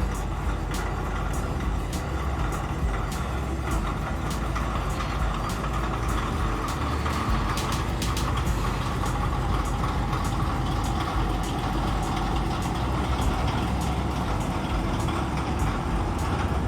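Heavy diesel engine running steadily with a deep rumble, with a string of short clicks throughout.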